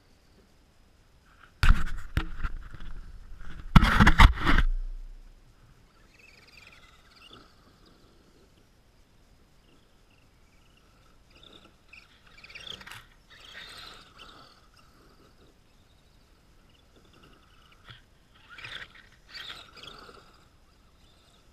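Radio-controlled truck driving through snow, its motor whining and its tyres churning snow in passes that swell and fade twice, around the middle and again near the end. Loud knocks and rustling come about two seconds in and are the loudest sound.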